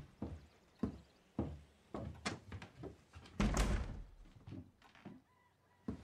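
Footsteps on wooden floorboards, a knock about every half second, then a wooden-framed window pushed shut about three and a half seconds in, the loudest sound, followed by a few softer knocks.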